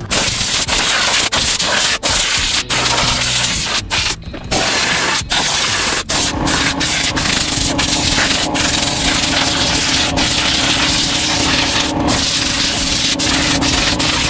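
Compressed-air blow gun hissing in long blasts with many brief breaks, blowing water off wet motorcycle parts. About six seconds in, the new air compressor's motor starts running underneath with a steady hum.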